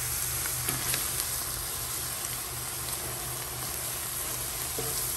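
Chopped onions, bell peppers and celery sizzling steadily in butter in a large aluminum pot as they brown, stirred with a wooden spoon, with a few faint clicks. A steady low hum runs underneath.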